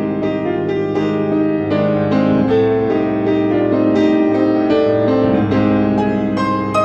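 Piano music: a melody of notes changing every half second or so over lower held notes, steady in level throughout.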